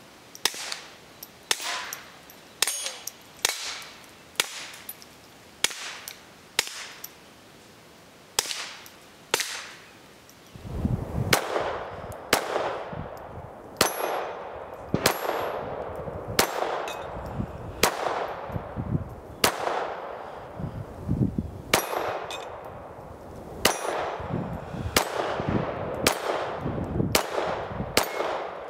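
Keltec P17 .22 LR pistol fired in a steady string of single shots, about one a second, each sharp crack with a ringing tail, matching hits on steel plate targets. From about ten seconds in, a steady low rumble runs under the shots.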